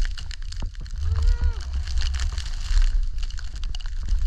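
Skis running through deep powder snow, with wind rumble on the action camera's microphone and scattered clicks and knocks. A short voiced call from a person comes about a second in.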